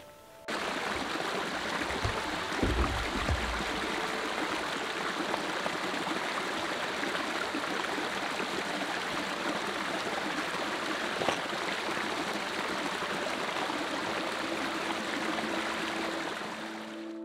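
A stream of running water, a steady even rush that starts suddenly about half a second in. A brief low rumble comes about two to three seconds in.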